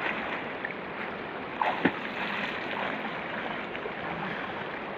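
River water rushing and lapping steadily around people wading in it, with two short sharp sounds close together a little under two seconds in.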